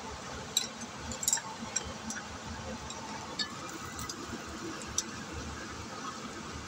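Chopsticks clicking and clinking against a stainless steel wok while tossing stir-fried noodles: a handful of sharp, scattered clicks, the loudest cluster about a second in, over a steady background hiss.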